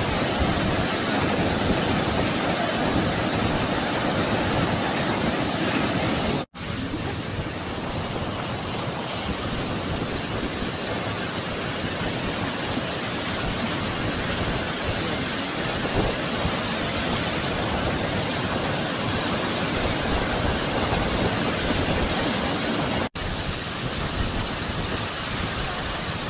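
Minoo Falls, a waterfall, pouring with a steady, even rush of water noise. The sound cuts out for an instant twice, about six seconds in and near the end, and is a little quieter after the first break.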